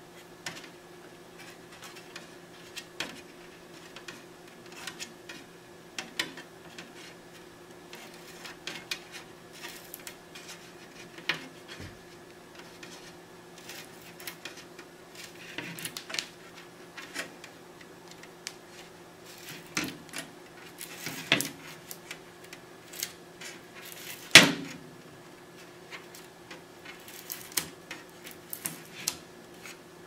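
Hard drive and sheet-metal DVR case being handled by hand: irregular clicks, taps and light knocks of metal and plastic parts, with one louder knock in the last third, over a steady low hum.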